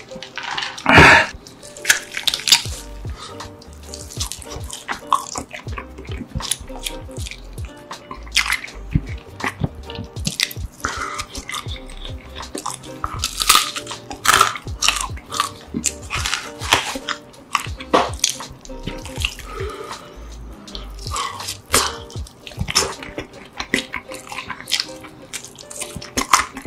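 Close-miked eating sounds: a loud slurp of a drink through a straw about a second in, then wet chewing and lip smacking on roast chicken, with many sharp mouth clicks.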